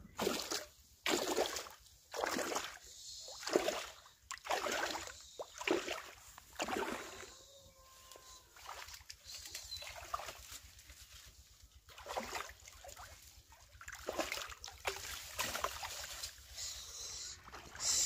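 Shallow muddy pond water splashing and sloshing in irregular bursts as someone wades through it and sweeps a hand net along the bottom to catch fish.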